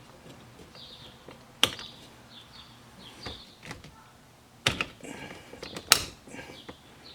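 Horn button being worked off a C3 Corvette steering wheel: three sharp clicks about a second and a half in, near five seconds and at six seconds, with smaller ticks and faint short high chirps between them.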